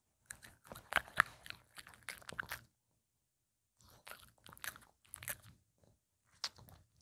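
Maltese dog crunching and chewing a small hand-fed treat: a run of crisp crunches over the first couple of seconds, more chewing after a short pause, and a last few crunches near the end.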